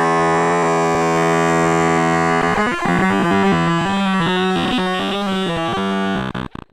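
Digitally distorted 'goofy ahh' fart sound effect turned into a buzzy synthesized tone: one steady held note, then from about two and a half seconds in a run of shifting pitched notes like a tune, stuttering and cutting off at the end.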